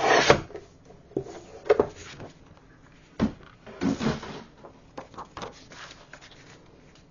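A paper trimmer's blade swiped once through a sheet of patterned scrapbook paper at the start, followed by several plastic clunks and paper rustles as the trimmer is moved aside and the cut pieces are handled on a cutting mat.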